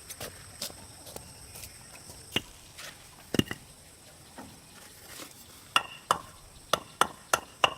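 Scattered light clicks, one sharp knock about three and a half seconds in, then from about six seconds in a quick run of sharp strikes, two to three a second, like a hand tool striking wood.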